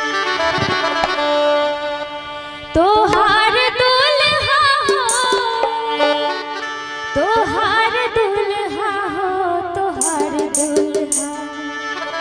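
Live band music for a Maithili wedding song: a wordless melody that slides and wavers in pitch, over hand-drum accompaniment. It gets louder about three seconds in.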